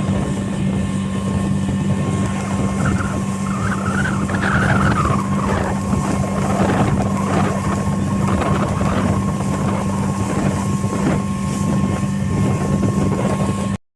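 Speedboat engine running steadily at speed, a constant low hum over the rush of water and wind. It cuts out abruptly near the end.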